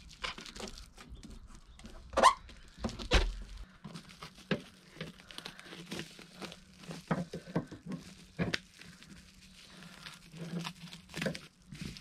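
Foil-faced bubble insulation crinkling and crackling as it is pressed and smoothed onto a van's steel door panel, with irregular taps and a few louder snaps, the loudest about two seconds in.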